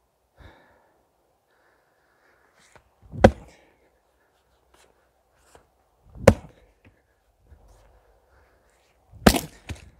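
Fiskars IsoCore XXL splitting maul chopping into a log round on a chopping block, three sharp strikes about three seconds apart as the log is quartered. The last strike is the loudest and is followed closely by a second knock.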